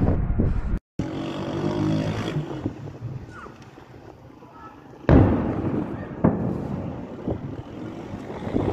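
Wind rumbling on the microphone, cut off by an edit; then faint outdoor noise, broken about five seconds in by a sudden loud bang that dies away over a couple of seconds, with a sharp crack about a second later: distant explosions of air strikes.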